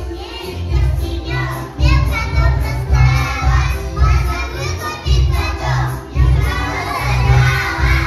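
Young children singing chastushki, Russian comic folk ditties, together in a loud, half-shouted style over a musical accompaniment with a steady beat.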